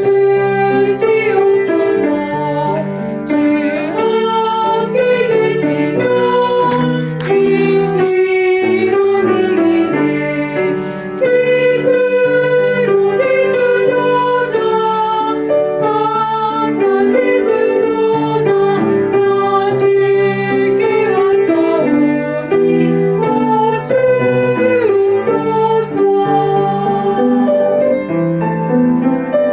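Soprano voice singing a slow sacred song in long held notes, with piano accompaniment.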